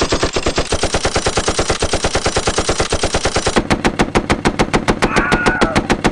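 Long, sustained automatic machine-gun fire, a rapid even string of shots at about eleven a second. About three and a half seconds in it gives way to a slightly slower run of shots.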